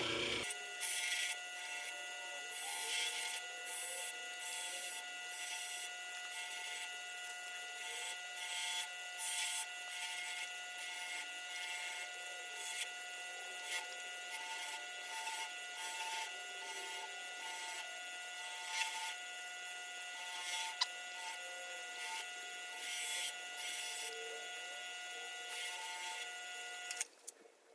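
Hand file rasping across the steel screwdriver tip in uneven strokes, roughly one or two a second, shaping its flats, over a faint steady whine.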